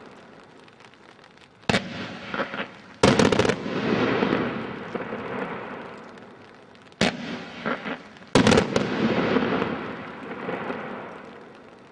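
A 100-shot fan cake of brocade shells firing in two volleys. Each volley has a couple of single sharp shots, then a quick cluster of several: the first cluster comes about three seconds in, the second near eight and a half seconds. Each volley is followed by a noisy tail that fades over a few seconds.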